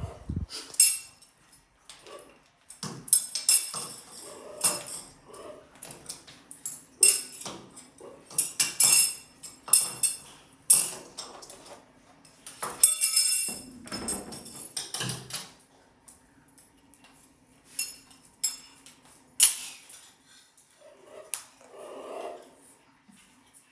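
A metal spoon clinking and rattling in irregular clusters of sharp jingly knocks as a parrot handles it, busiest in the first half and sparser towards the end.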